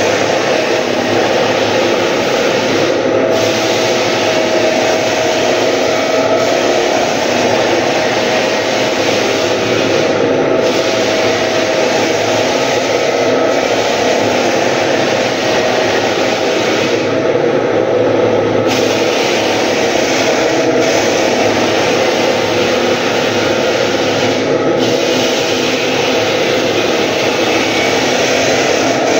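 Drum floor sander running continuously, its motor hum over the grinding of the sanding drum on wooden floorboards. The high hiss dips briefly a few times.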